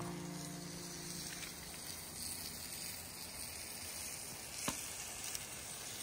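Food frying in a hot pan, a steady sizzle, with a single sharp click about four and a half seconds in.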